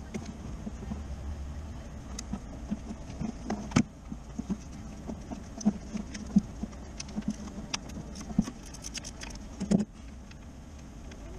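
Scattered light clicks and knocks of hand work on parts and bolts in a car's engine bay, irregular, with a few sharper knocks: one about four seconds in and one near the end. A low steady hum runs underneath.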